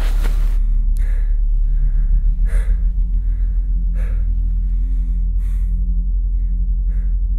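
A person gasping for breath, one heavy breath about every second and a half, over a loud low steady drone.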